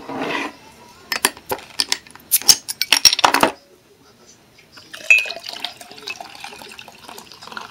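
Glass clinks and knocks as a glass bottle of Hoppy is handled. About five seconds in, a steady fizzing pour of Hoppy into a frosted glass mug begins.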